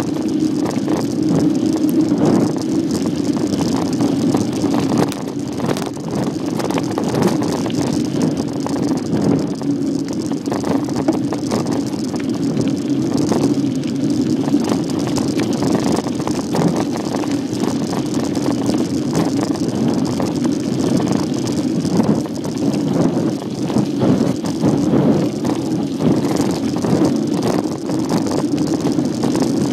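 Bicycle ridden along a rough dirt trail: a steady rumble from the tyres and frame, with many small rattling knocks throughout.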